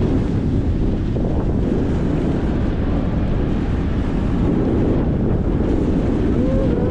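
Wind buffeting the microphone over open sea: a steady, loud low rumble with no break.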